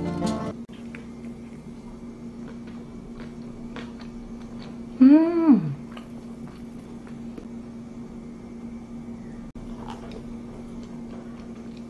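Background music stops about half a second in, leaving a quiet room with a steady low hum and scattered faint clicks. About five seconds in comes one short call whose pitch rises and then falls.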